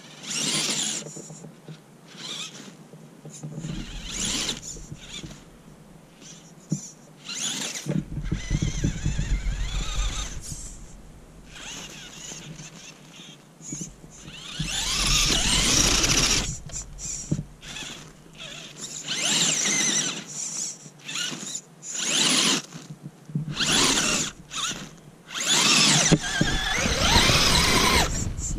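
Axial UTB18 Capra mini crawler's electric motor and gear drivetrain whining in repeated bursts of throttle, running on a 3S battery, its pitch rising and falling as it revs, with tyres churning through snow.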